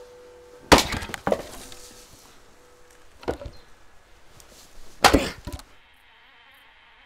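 Axe chopping firewood on a chopping block: two hard strikes about four seconds apart, each followed by the crack of the wood splitting and a short clatter, with a lighter knock between them.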